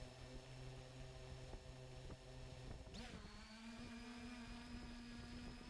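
3DR Iris+ quadcopter's electric motors humming faintly at a steady pitch, then spinning up to a higher steady hum about three seconds in.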